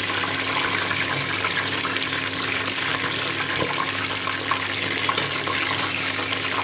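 Chicken half frying in shallow oil in a steel pot: steady sizzling and crackling as hot oil is spooned over it. A faint steady low hum runs underneath.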